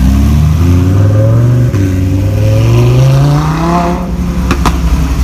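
Car engine accelerating hard, rising in pitch through one gear, shifting about a second and a half in and climbing again. Near the end the driver lifts off and the exhaust gives a few sharp crackles.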